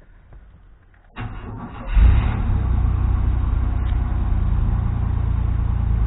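Chevy C1500's 4.3 L V6 engine starting up about a second in, then running steadily with a loud low rumble, just after a new EGR valve was fitted and the old trouble code was erased.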